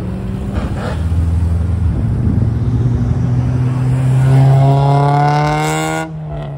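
Car engine accelerating hard, its note rising steadily for about three seconds, then dropping off sharply near the end.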